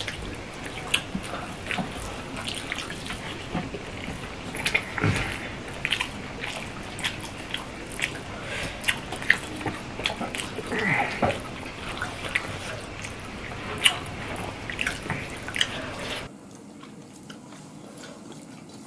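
Wet eating sounds: fingers squishing and mixing rice with fish curry on steel plates, and chewing, heard as many quick irregular wet clicks.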